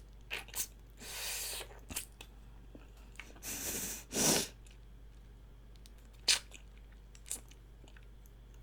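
Close-miked eating sounds from a meal of chicken feet in broth and Chinese glass noodles: scattered wet chewing clicks, with two longer noisy stretches about a second in and around the middle, the second the loudest.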